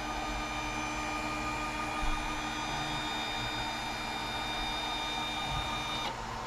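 Snapmaker 2.0 A350's stepper-driven linear modules running, a steady whine made of several constant tones, as the machine drives the bed and toolhead to the first calibration point. The motion stops about six seconds in.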